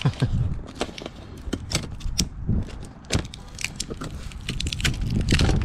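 Clear tape crinkling and a thin metal fire ring clicking as it is worked out of a copper head gasket: a run of sharp crackles and ticks.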